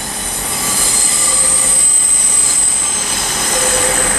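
Train wheels squealing on the rails as a train moves slowly through the station: a steady high-pitched squeal made of several held tones, growing a little louder after the first second.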